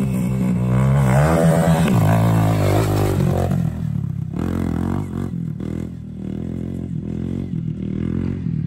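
Small dirt bike engine revving as it pulls away, its pitch climbing about a second in, then running lower with brief dips in the note and growing quieter as the bike moves off.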